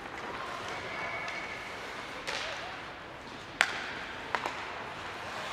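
Ice hockey stick-and-puck impacts: one sharp crack about three and a half seconds in is the loudest, with a smaller knock before it and two light taps after, over the steady hubbub of the rink.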